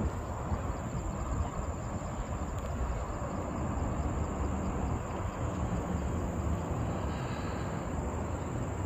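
Outdoor ambience: a steady low rumble of wind on the microphone and distant city traffic, with a thin, steady, high insect whine above it.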